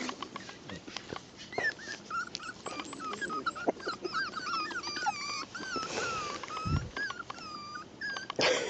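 Young puppy whining and squeaking while play-biting a hand: many short, high-pitched squeals that rise and fall, with one louder yelp near the end.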